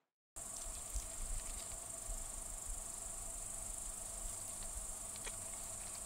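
Steady high-pitched chirring of insects in an unbroken chorus, starting just after a brief silence.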